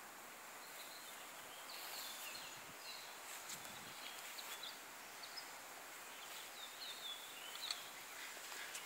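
Faint outdoor background hiss with small birds chirping now and then, short high chirps scattered throughout.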